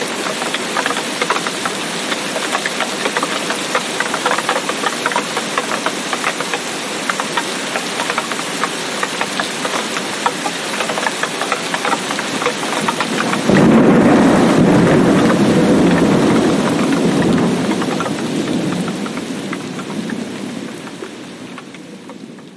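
Heavy rain falling, a dense hiss full of drop patter. About two-thirds of the way in, a loud low rumble of thunder sets in suddenly and rolls on for several seconds, then the rain and thunder fade out toward the end.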